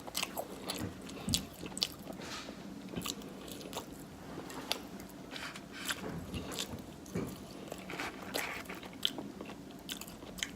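A person chewing and biting food close to the microphone: irregular wet smacks and crunchy clicks, several a second.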